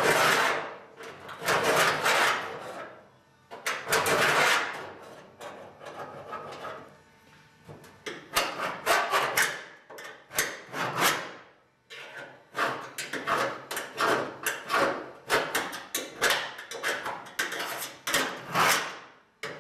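Steel scribe scratching a cut line into the old sheet-steel trunk floor along the edge of a new floor pan, in a long series of irregular scraping strokes that grow shorter and quicker about halfway through.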